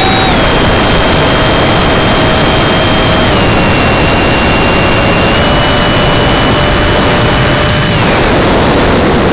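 70mm electric ducted fan of an RC F-18 jet whining over heavy rushing air noise, heard from a camera mounted on the plane. The fan's pitch steps down twice as the throttle is eased, lifts slightly, sags away about eight seconds in, then begins climbing sharply again right at the end as power is reapplied.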